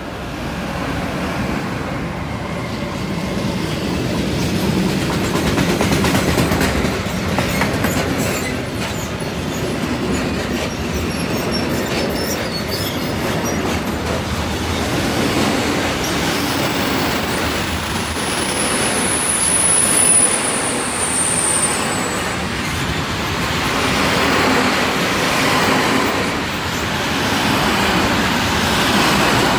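Electric-hauled freight train passing close by. The Siemens Vectron and Smartron locomotives go by at the start, then a long rake of sliding-wall covered wagons rolls past with a steady rumble of wheels on rail and clicks over the rail joints. A high wheel squeal, falling slightly in pitch, comes about two-thirds of the way through.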